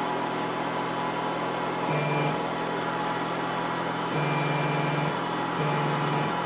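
WDS-620 BGA rework station running while it heats the GPU board: a steady blower hiss with a low buzzing hum that comes on three times, each for under a second.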